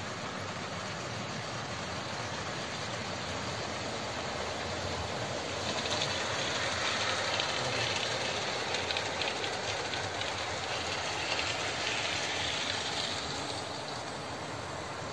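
Many OO gauge model trains running at once on the layout's tracks: a steady running noise of small motors and wheels on rail, growing louder from about six seconds in and easing off again near the end.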